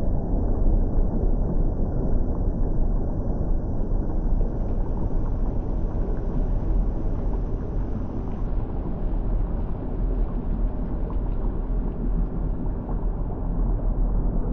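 Bubbling lava: a continuous deep rumble with steady bubbling through it.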